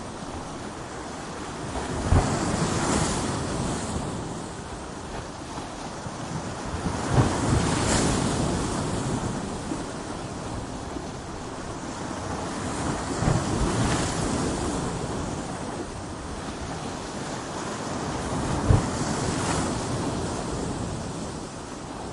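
Ocean waves breaking against coastal rocks, four waves about every five to six seconds. Each one lands with a sharp low thump and then a rushing wash that fades into steady surf.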